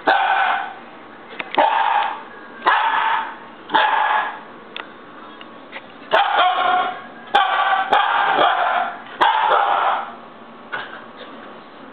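Siberian husky puppy throwing a fit, yelling in a string of eight short pitched barks, each well under a second, with a longer pause about halfway through.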